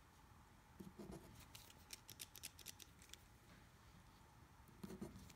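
Faint scratching of a pencil writing on paper, heard as a scatter of light, short scratches.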